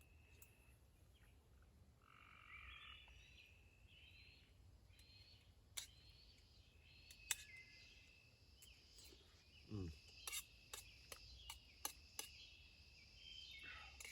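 Faint woodland animal calls, short chirps and croaks, over a low steady rumble of distant road traffic, with a few sharp clicks in the second half.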